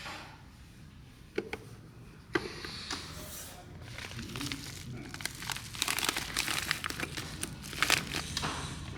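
Plastic packaging crinkling and rustling as it is handled, with scattered sharp clicks; it grows busier from a couple of seconds in.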